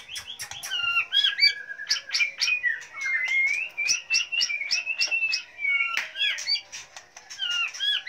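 Caged white-rumped shamas singing: a continuous run of varied whistled phrases that rise and fall, mixed with many sharp clicking notes.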